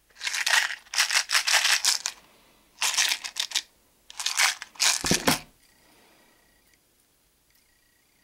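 Three bursts of crinkling and rattling as small fishing tackle and plastic packaging are handled, with a low thump about five seconds in.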